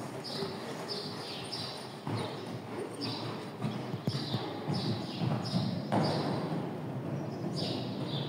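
Mare cantering on sand arena footing, her hoofbeats coming in a steady rhythm of about two strides a second.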